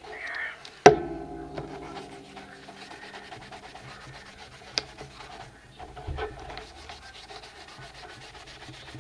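Hands rubbing and pressing glued paper and lace scraps flat onto a paper collage, a steady soft rubbing of paper against paper. About a second in there is a sharp knock that rings briefly, and a smaller click near the middle.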